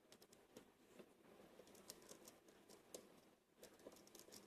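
Near silence with scattered faint light clicks, consistent with a small pin-tumbler lock cylinder being handled.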